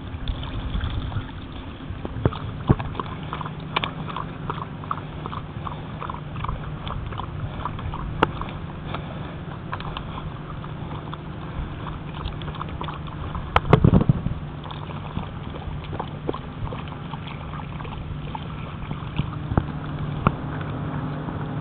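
Dog lapping water from a collapsible bowl, a quick, even run of laps about three a second for several seconds before it stops. A steady low hum runs underneath, and there is a single loud thump about fourteen seconds in.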